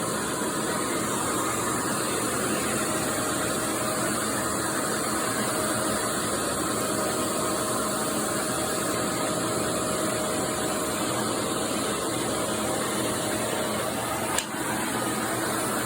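Homemade vacuum cleaner running steadily with its suction-powered upholstery tool attached: an even rushing of air under the motor, with a faint steady whine. A short click near the end.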